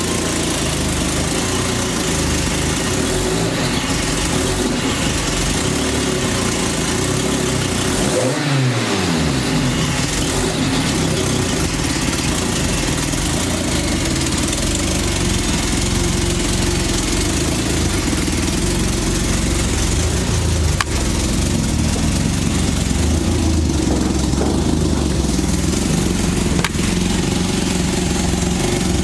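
The Porsche 944's swapped-in VW 07K 2.5-litre inline five-cylinder engine running steadily at idle, with a brief change in engine pitch about eight seconds in.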